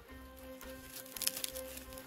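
Quiet background music with steady held notes. About a second in there is faint crackling of dry dead shrub twigs being snapped by hand.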